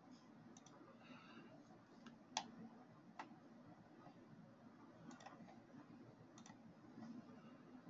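Near silence with a handful of faint, sharp computer mouse clicks, scattered irregularly, some in quick pairs, the loudest about two and a half seconds in.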